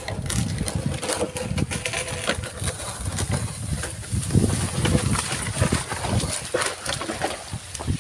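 Wooden carabao-drawn sled dragged over the ground: a low rumbling scrape with frequent knocks and rattles from the wooden frame.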